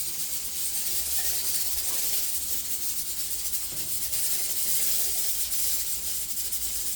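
Mussels in oil and spiced sauce sizzling and simmering in a pan, a steady high hiss.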